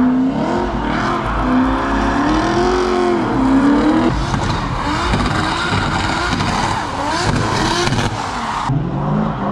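Drift cars sliding past at close range, engines revving up and down as the throttle is worked, with tyres squealing and hissing under them. The high tyre noise drops away suddenly near the end.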